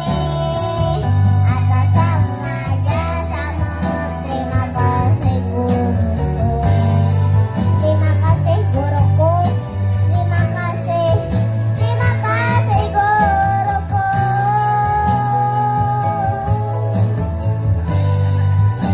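A choir of young children singing together over backing music with a steady bass beat.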